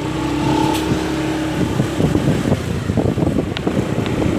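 Motorbike engine running steadily while riding, its hum giving way after about a second and a half to rough wind buffeting on the microphone.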